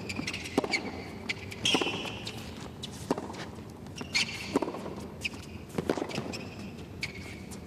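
Tennis rally on a hard court: rackets strike the ball with a sharp pock roughly every second or so. Short high shoe squeaks come in between some of the hits.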